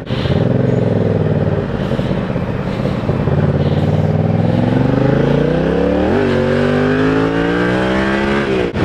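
Yamaha MT-07's 689 cc parallel-twin engine pulling under acceleration, its note climbing steadily, with a quick break in pitch about six seconds in, like a gear change, before it climbs again.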